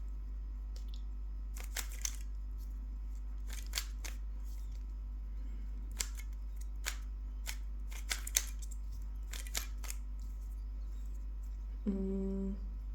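Plastic Rubik's Cube layers being turned by hand: irregular short clicks and clacks, some coming in quick pairs or runs of three.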